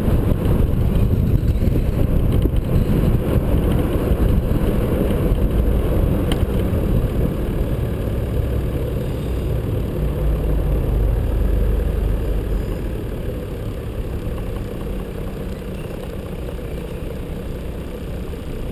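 A 4WD driving: steady low rumble of engine and road noise, picked up by a camera mounted on the vehicle. The rumble grows quieter after about twelve seconds.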